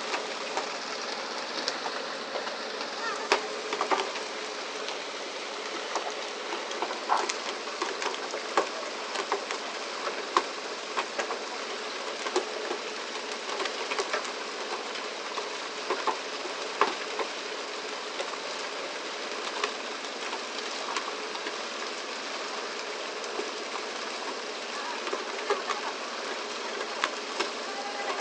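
Steady rushing of water spray and sea along a pole-and-line tuna boat's hull, with frequent irregular sharp knocks and slaps as tuna are swung aboard and land on the deck.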